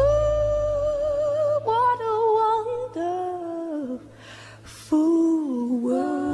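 Background music: a woman's voice humming a slow, wordless melody with vibrato over a soft accompaniment that drops away about a second in. A breath is taken about four seconds in before the humming resumes.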